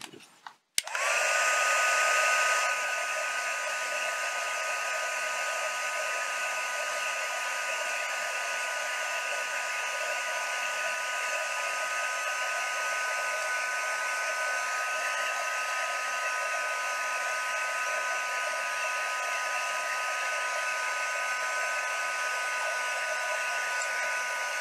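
Embossing heat tool blowing hot air onto shrink-plastic petals to shrink them: a steady rush of air with a fan whine, switched on about a second in and a little louder for the first couple of seconds.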